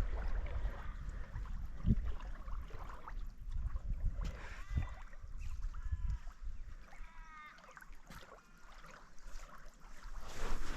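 Outdoor ambience from a small aluminium boat: a low wind rumble on the microphone, a few soft knocks, and faint high chirps now and then.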